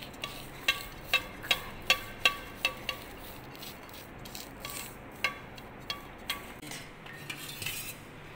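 Metal kitchen utensils clinking against a steel vessel: a quick run of sharp, ringing clinks about two a second, then a few scattered clinks near the end.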